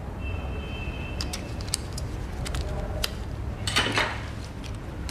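Quiet room tone with a low steady hum and a faint high tone at the start. A few light clicks and clinks follow, then a short rustle of clothing and gear about four seconds in.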